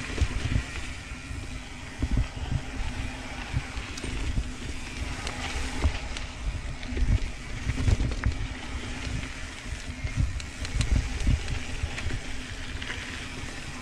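Mountain bike riding fast down a dirt trail: tyre noise and wind buffeting the helmet-camera microphone, with scattered clicks and rattles from the bike and a faint steady hum underneath.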